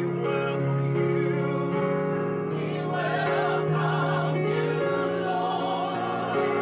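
Gospel vocal group singing in harmony, holding long chords that change every second or so.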